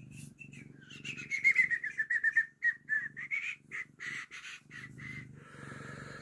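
Domestic cat purring close to the microphone, a low steady rumble. From about a second in until near the end, a bird sings a rapid run of high chirps that are louder than the purr.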